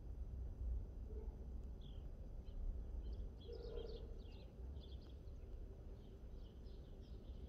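Faint small-bird chirping, many quick high notes in a run, starting about two seconds in, over a steady low rumble.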